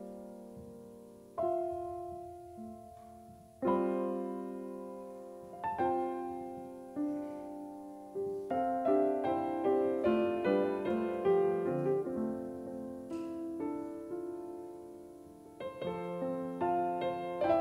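Solo grand piano. A few single chords are struck and left to ring out, then a busier, fuller passage begins about eight seconds in, thins briefly, and picks up again near the end.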